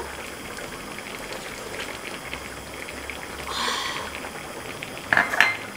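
Kimchi stew simmering in a pot on a gas stove, a steady fine bubbling, with a slurp of broth from a spoon about three and a half seconds in and a short, louder noise near the end.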